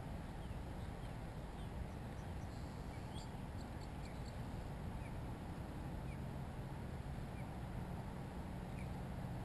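Steady low outdoor background noise with scattered short, high bird chirps.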